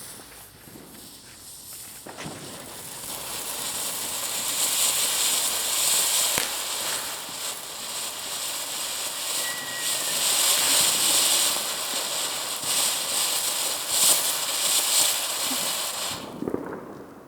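Dense crackling of many New Year's Eve fireworks and firecrackers, with scattered sharp bangs. It swells over the first few seconds and cuts off suddenly near the end.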